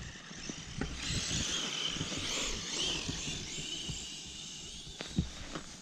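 Brushless electric motor of a Traxxas Summit 1/16 RC truck whining as it drives through snow, the high whine rising and falling with the throttle from about a second in, then fading near the end. Irregular low thumps and rumble run underneath.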